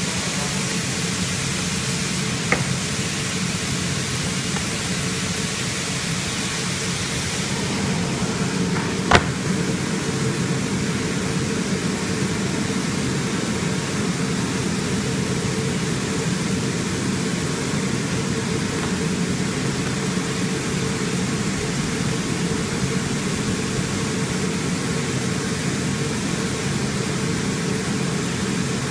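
Flatbed digital cutting machine running idle with a steady hum and hiss, the fan-like noise of its blower. A few light clicks come from cut cork gasket pieces being handled, the loudest about nine seconds in.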